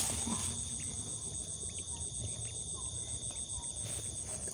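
Night insects, crickets chirring in a steady chorus: a fast, even pulsing trill with a steady high tone beneath it.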